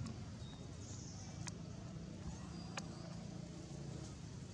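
Outdoor ambience: a steady low rumble with faint high chirps, and two sharp clicks, about a second and a half in and again near three seconds.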